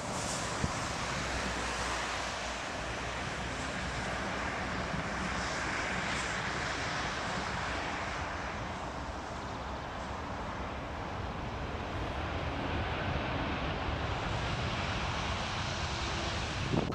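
Jet airliner engines running, a steady rushing noise that swells slightly about six seconds in.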